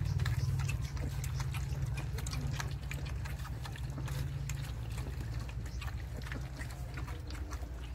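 Litter of 26-day-old German shepherd–Belgian cross puppies lapping and slurping milky food from a shared bowl: a quick, irregular patter of small wet clicks. A low steady hum sits underneath and eases off after about five seconds.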